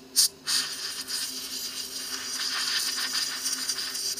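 Can of compressed-air duster spraying through its straw into a rotted hole in a wooden door frame, blowing out loose wood dust. A short blast comes first, then after a brief pause a long, steady hiss of almost four seconds that cuts off suddenly.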